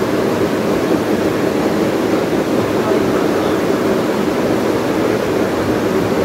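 Steady rushing hum of a room air conditioner running, unchanging throughout.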